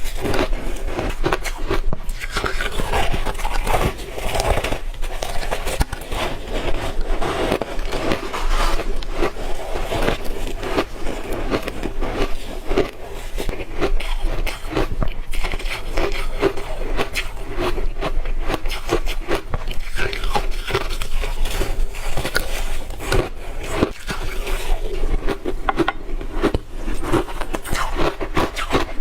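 Close-miked biting and chewing of hard ice chunks coated in matcha powder: a dense, continuous run of sharp crunches and crackles.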